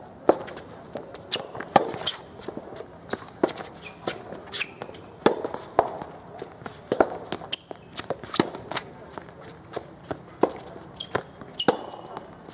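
Soft tennis rally: sharp, irregular pops of rackets striking the soft rubber ball and the ball bouncing on the hard court, with the players' footsteps scuffing between hits.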